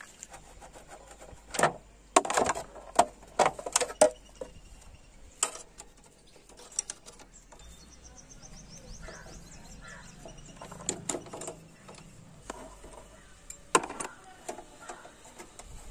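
Scattered sharp clicks and knocks, several close together in the first four seconds and a few more near the end.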